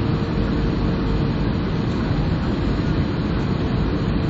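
Cabin noise inside an Airbus A320-family jet on approach to land: a steady rushing roar of engines and airflow, with a faint steady hum.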